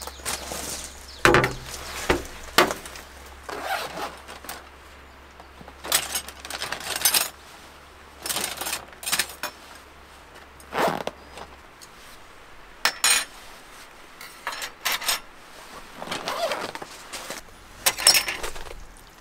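Irregular knocks, scrapes and rustles of camp-kitchen gear being handled and set down on a stainless steel table, a few sharper clacks standing out.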